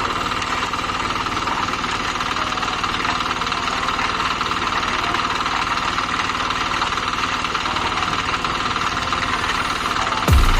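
Small engine of concrete-pouring equipment running steadily with a fast, even pulsing hum.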